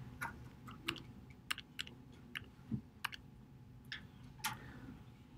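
Faint, irregular clicks from a computer's keyboard and mouse controls being worked, more than a dozen short clicks spread over a few seconds.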